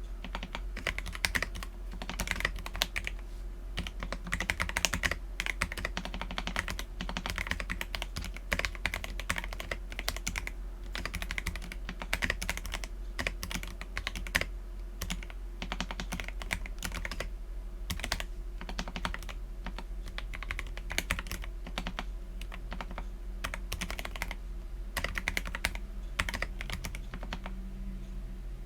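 Akko PC75B mechanical keyboard with lubed Akko Jelly Black linear switches and PBT Cherry-profile keycaps, typed on continuously in a fast, irregular stream of keystrokes.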